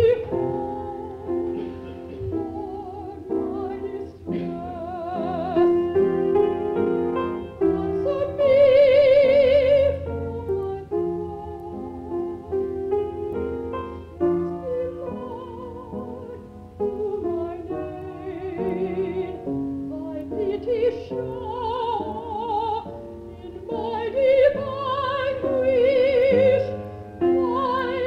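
Classical operatic singing with strong vibrato, over piano accompaniment.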